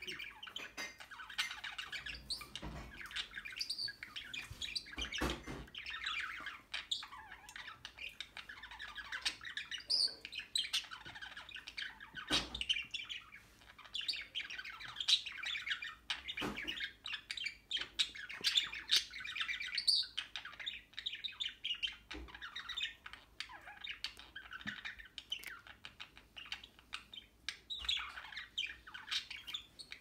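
Two pet budgerigars warbling and chirping to each other in a steady, busy chatter of quick, high notes. A few soft thumps are heard along the way.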